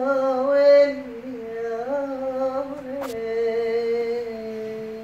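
A man singing unaccompanied, holding one long drawn-out note that steps down in pitch twice before fading near the end. A sharp click is heard about three seconds in.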